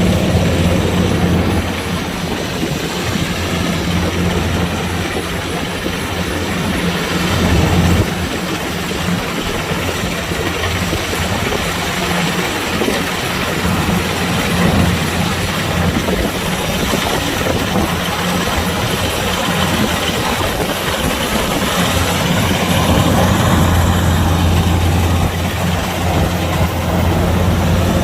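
Kubota DC-105X diesel combine harvester running steadily under load, its engine hum mixed with the noise of the cutting and threshing machinery.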